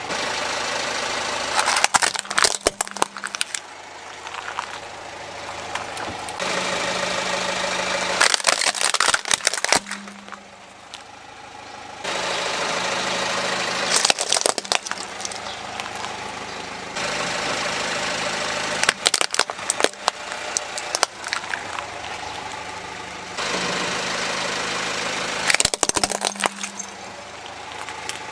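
A car's engine running while its tyre rolls over plastic toys and building blocks, crushing them with clusters of sharp cracks and snaps. This happens about five times, a few seconds apart.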